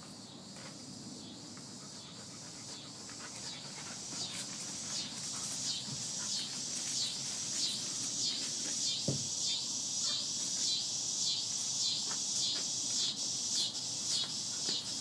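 High-pitched outdoor chirping from an unseen calling animal, pulsing about twice a second over a steady high hiss and growing louder as it goes.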